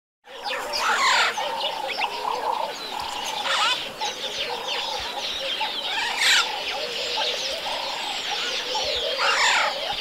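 Many birds calling together: a constant mix of chirps and short repeated calls, with several loud calls that sweep down in pitch, the loudest about six seconds in. It begins suddenly just after the start.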